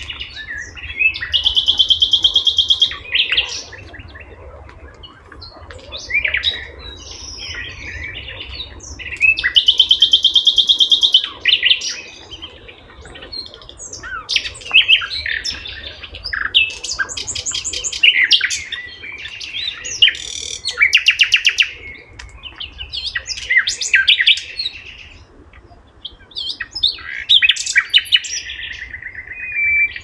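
Several songbirds singing: long, rapid trills of about two seconds, about a second in and again near 10 s, with many shorter chirps and whistles from other birds between them.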